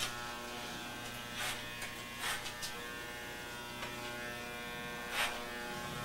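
Corded electric hair clippers running with a steady buzz while cutting hair close to the scalp, with three brief louder strokes as the blades pass through hair.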